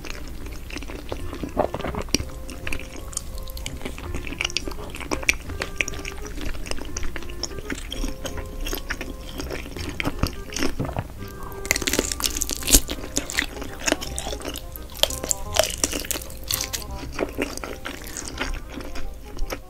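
Close-up eating sounds: a wooden spoon scooping curry rice, then biting into and chewing coiled sausage, with many short wet clicks and crunches. Soft background music plays underneath throughout.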